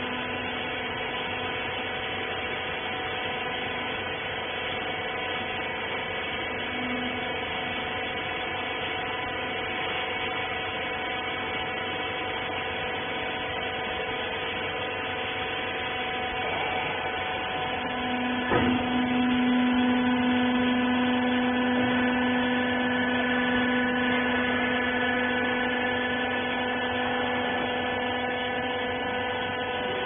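Hydraulic baler's power unit running with a steady hum of several fixed tones. A little past halfway there is a single knock, after which a lower tone joins in and holds and the hum gets slightly louder.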